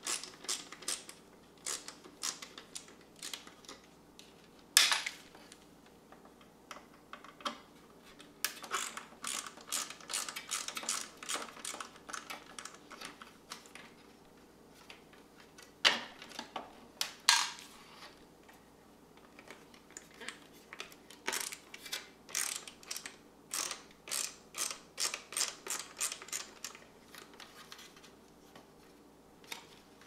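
Screws being backed out of the plastic housing of a Saeco Talea Ring Plus espresso machine with a hand screwdriver: runs of quick clicking as the screwdriver turns, a few louder plastic clacks about five seconds in and again around sixteen and seventeen seconds.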